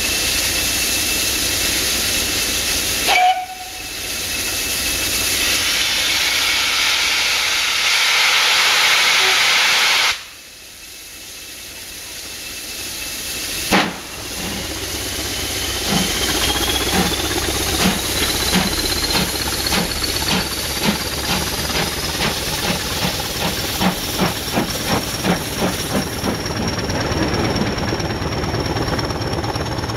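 GWR 9400 class pannier tank steam locomotive standing with steam hissing, a short loud blip about three seconds in; the hiss stops abruptly about ten seconds in. It then restarts its train on a steep climb: a sharp blast, then exhaust beats that start slow and quicken to about three a second, with a whine that rises steadily in pitch.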